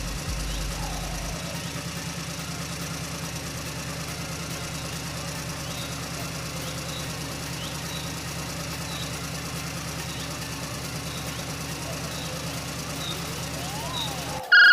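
Engine idling steadily with an even low throb, then cutting off abruptly just before the end.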